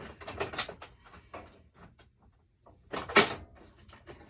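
Hand tools and metal parts clattering and rattling as a toolbox is rummaged through, with one louder clunk about three seconds in.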